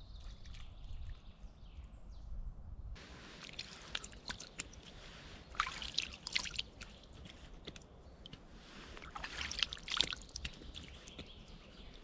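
Water scooped up by hand from a shallow pool and poured back, splashing and dripping. It starts about three seconds in, with two louder bouts of splashing around six and ten seconds.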